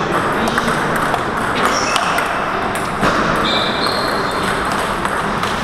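Table tennis ball clicking sharply off paddles and the table in a rally, in a large echoing hall. There are irregular hits, a louder one about three seconds in, and a few brief high squeaks shortly after.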